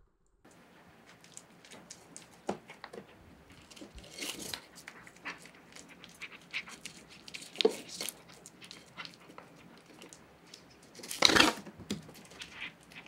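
A cat eating shredded meat off a wooden floor and a plate: irregular wet chewing, smacking and lapping clicks, with a louder scraping burst about eleven seconds in.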